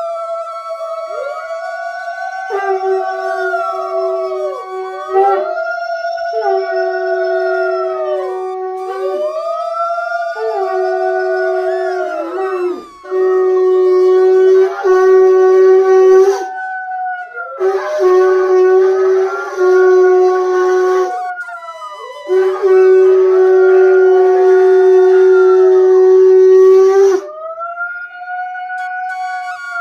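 Conch shell (shankha) blown in long steady blasts with a breathy hiss, the loudest three coming about midway and toward the end. A dog howls along in repeated rising-and-falling wails throughout.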